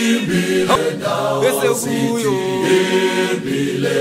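Several voices singing together unaccompanied, a chant-like Xhosa/Zulu song holding long notes at a few pitches at once. This sounds like the group answer in a call-and-response song.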